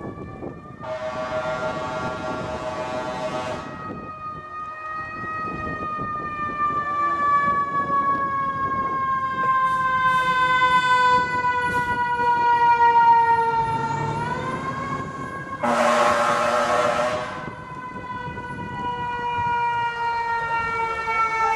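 Fire engine siren sounding one long wail that falls slowly in pitch, winds up again about two-thirds of the way through, then falls again. Two horn blasts sound over it, one of a couple of seconds about a second in and a shorter one about three-quarters through.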